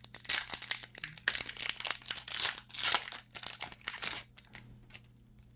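Foil wrapper of a Pokémon Unified Minds booster pack crinkling and crackling as it is torn open by hand, for about four seconds, then a few light clicks.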